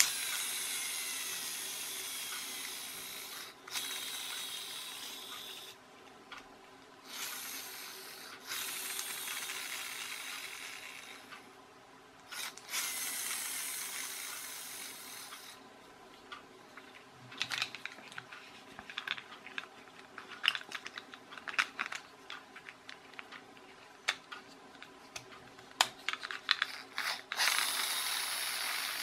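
A toy's friction-motor flywheel gearbox whirring as the wheels are pushed to spin it up, four times in a row, each run fading as the flywheel winds down. Then a run of sharp plastic clicks and snaps as the gearbox is clipped back into the plastic chassis, and another whirr starts near the end.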